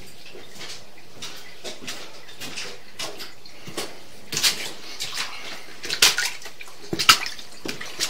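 Water draining in the sewer line after the hose is shut off: a steady trickle with irregular drips and small splashes, a few louder splashes in the second half.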